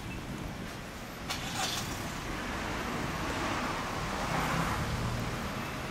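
A motor vehicle's engine running, swelling louder about four seconds in and easing off near the end. Two light clicks come about a second and a half in.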